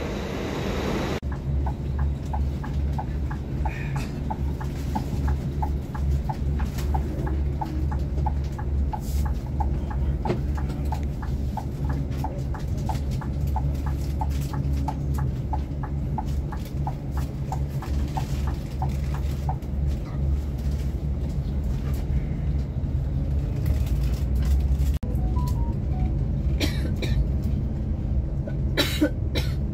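Scania K360 coach engine running with a steady low rumble, with a regular ticking of about two a second over it that stops about two-thirds of the way through.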